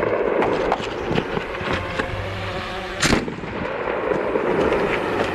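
Hatsan Blitz .30 PCP air rifle firing during a shooting run: scattered sharp pops, with one much louder bang about three seconds in.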